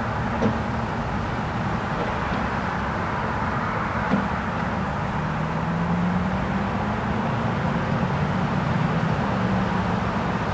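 Light road traffic: a steady wash of passing cars, with one vehicle's low engine drone rising slightly in pitch midway. Two short clicks, about half a second in and about four seconds in.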